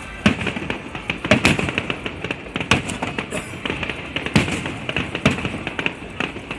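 Aerial fireworks shells bursting in quick succession, a dense run of sharp bangs and crackles, with music playing underneath.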